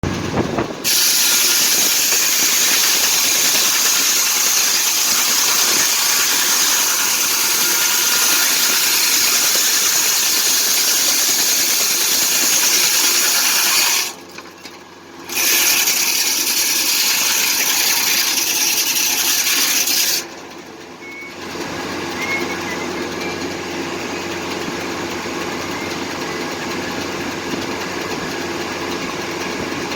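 Foley Belsaw circular sawmill running: a loud, steady rushing noise that drops away briefly about halfway through, then falls to a quieter steady engine hum a few seconds later.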